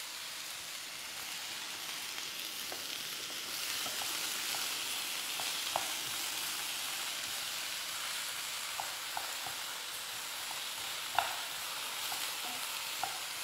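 Vegetables, mushrooms and chicken breast sizzling steadily in oil in a stainless steel sauté pan on a gas hob while a wooden spoon stirs them. The spoon knocks lightly against the pan a few times, most clearly near the end.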